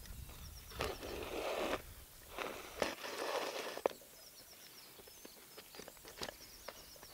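Thread drawn through rawhide during hand stitching: two scratchy pulls, each about a second long, the first about a second in and the second around the three-second mark, with small handling clicks between them.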